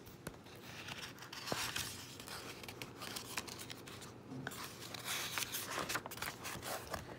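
Pages of a new picture book being handled and turned: quiet paper rustling and crinkling with small clicks and scrapes.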